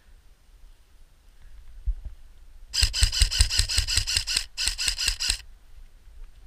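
Airsoft electric gun firing on full auto: two bursts of rapid, evenly spaced shots with the gearbox whine under them. The first burst starts about two and a half seconds in, and the second follows after a brief break.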